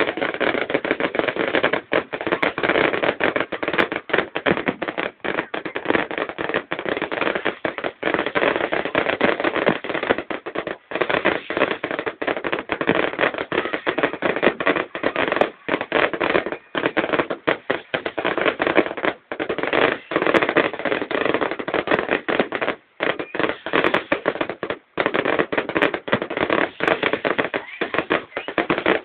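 Fireworks going off in a dense, continuous crackle of rapid pops and bangs, with only a few brief gaps.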